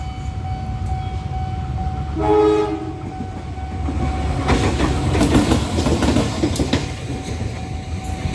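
A train passing close by with a steady low rumble. About two seconds in it gives one short horn blast, and from about halfway its wheels clatter loudly over the rail joints.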